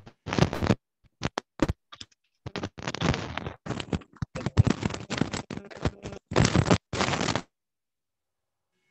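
Irregular bursts of scratching and scraping, stopping abruptly about seven and a half seconds in.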